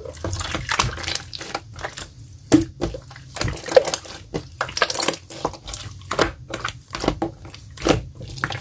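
Clear slime being played with, giving rapid, irregular wet clicks and pops.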